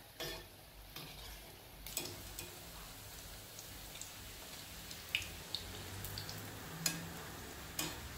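Bread rolls deep-frying in hot oil with a steady sizzle, broken by a few sharp clicks as a wire skimmer knocks against the pan while the rolls are lifted out.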